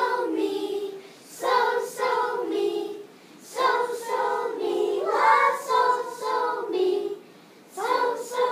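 A class of young children singing a short melody in unison on solfège syllables (so, mi, la, do), in short phrases with brief pauses between them.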